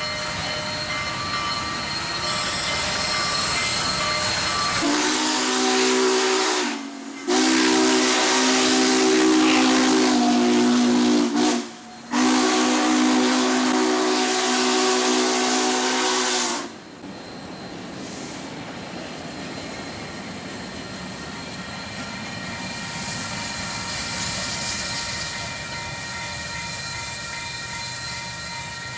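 Union Pacific 844, a 4-8-4 steam locomotive, sounding its chime whistle in three blasts with brief breaks between them, the first shorter than the other two. The steady rumble and hiss of the passing train runs under it and continues after the whistle stops.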